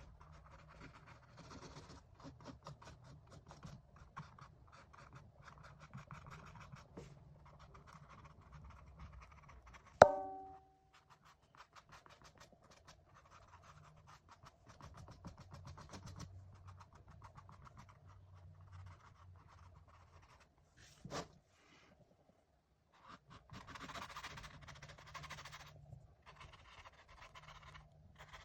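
Oil paintbrush bristles scratching across canvas in many quick short strokes. About ten seconds in there is a single sharp clink that rings briefly, and a smaller knock comes about twenty-one seconds in.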